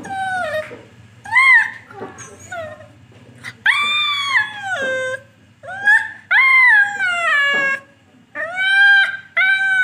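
A black puppy whining in a string of high-pitched cries, each rising and then falling in pitch. The longest comes about four seconds in and lasts over a second.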